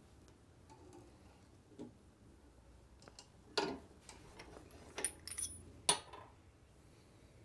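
Small metal parts and tools clinking and knocking a handful of times, the loudest knocks about three and a half and six seconds in, some with a brief high metallic ring.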